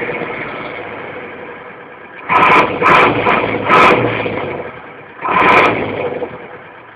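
Mercedes-Benz 710 truck's diesel engine idling parked, then revved in short throttle blips: three quick ones from about two to four seconds in and one more about five seconds in. Each one falls back toward idle.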